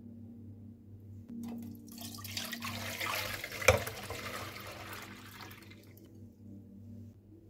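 Milk poured from a glass bowl into a metal non-stick pot, splashing in a steady stream for about four seconds before it tails off. There is one sharp knock about halfway through.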